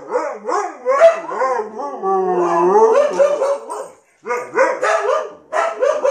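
Siberian husky howling and 'talking' in long wavering calls that rise and fall in pitch, a complaint at the birthday balloons. The calls break off briefly about four seconds in, then come back shorter and choppier.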